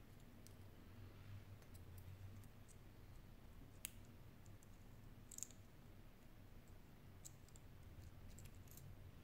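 Near silence with faint, scattered clicks of metal tweezers and small parts being handled inside an opened smartphone, two of them sharper, a little before and a little after the middle. A faint low hum underlies it.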